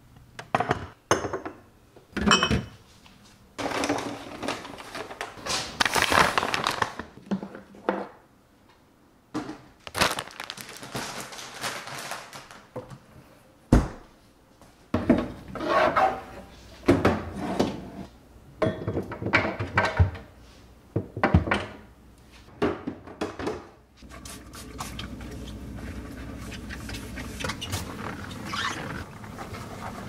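Plastic storage bins and a refrigerator drawer being handled and set down: a string of clacks, knocks and rustles. About two thirds of the way through it gives way to a steady rubbing of a cloth wiping the inside of the fridge.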